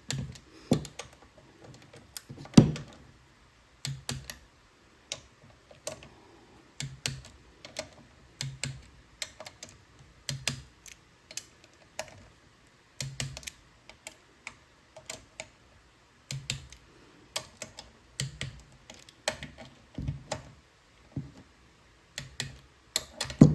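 Click-type torque wrench ratcheting oil pan cover bolts down on a small engine, short runs of ratchet clicks about once a second, with a sharper snap about two and a half seconds in and again near the end as the wrench breaks over at its set torque.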